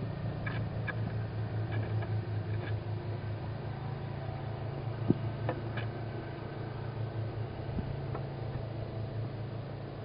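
Steady low hum in a tawny owl nest box, with faint scattered scratches and clicks as the owl chicks shift about; one sharper click about five seconds in.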